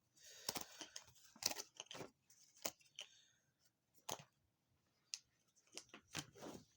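Small plastic bag and game pieces being handled: irregular soft crinkles and light clicks.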